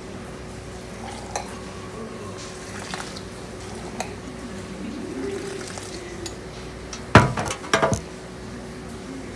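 Tea being poured from a cup into a steel tumbler, with light clinks of metal vessels, then a cup of tea set down on a wooden counter board with a few loud knocks about seven seconds in.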